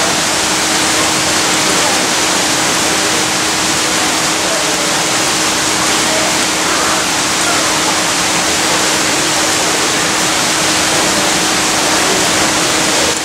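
Steady rush of falling water from a pond water feature, with a low steady hum underneath.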